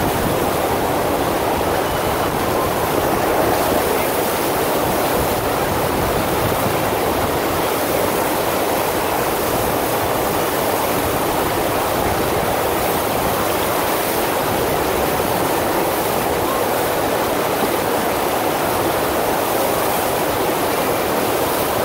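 Steady rush of water from a FlowRider sheet-wave machine, its pumped sheet of water streaming up the ride surface without a break.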